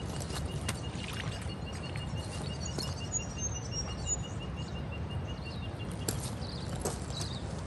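Riverside bush ambience: a steady low rumble, a high call repeated about five times a second that stops about six seconds in, a few brief bird chirps, and scattered clicks of footsteps on loose shale stones.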